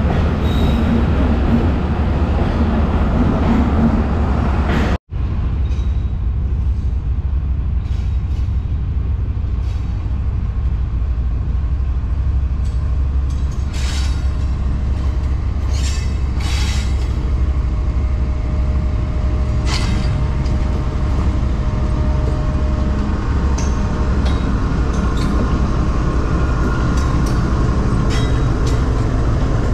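Tezgam Express passenger train running at speed: a steady heavy rumble of wheels on the track with scattered clicks and rattles. The sound drops out for an instant about five seconds in.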